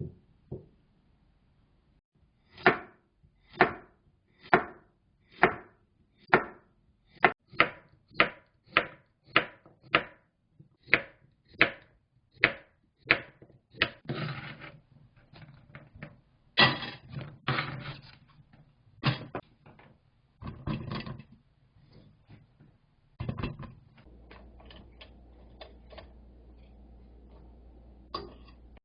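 Kitchen knife chopping carrots on a cutting board: sharp strokes at one to two a second for about ten seconds, then irregular knocks and scraping as the pieces are moved.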